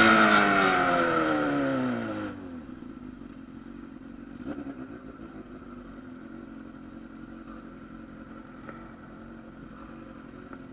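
Honda Hornet motorcycle's inline-four engine coming off the throttle, its note falling steadily for about two seconds, then dropping suddenly to a quiet steady idle.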